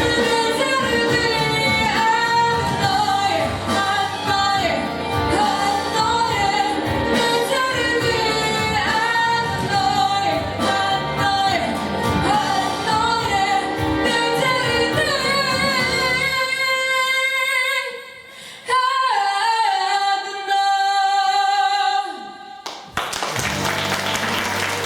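Young girl singing a pop song in Russian over an instrumental backing track. About 16 s in the accompaniment drops away and she holds a long final note, which ends about 22 s in; applause starts near the end.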